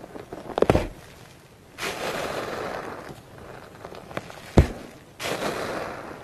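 Metal potato masher pressed into a tub of foamy, bubble-filled slime: dense crackling and popping of the air bubbles in two stretches, with two sharp knocks as the masher goes down, about a second in and near the end.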